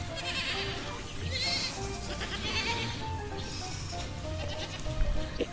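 Baby goat bleating several times in short wavering calls, over background music with short held notes.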